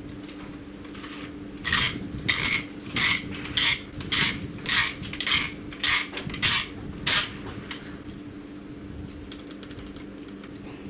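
Titanium STEEL HORDE QD-T quick-detach suppressor being twisted onto an AR-15's muzzle mount: a series of about ten short metallic clicks, roughly two a second, as it is tightened. The clicks stop a little past halfway through, once the suppressor is clamped.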